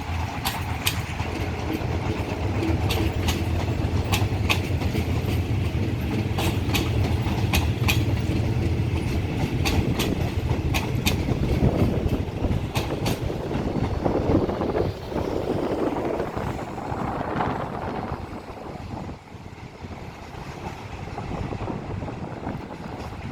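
A long-distance train hauled by a General Electric diesel locomotive rolling past: its wheels click over the rail joints in quick runs over the low, steady drone of the diesel engine. The drone fades after about ten seconds, the clicking stops about thirteen seconds in, and the rumble of the train dies away.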